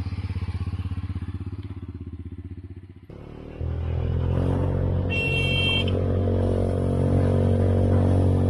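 Engine of a JIMING three-wheeled motorcycle running with a fast even beat, then, after a cut, running steadily and louder while under way. A brief high beep sounds about five seconds in.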